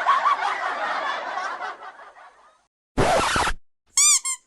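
Meme laugh sound effect: a crowd laughing, fading out about two and a half seconds in. A short noisy burst follows about a second later, then a warbling high-pitched tone starts near the end.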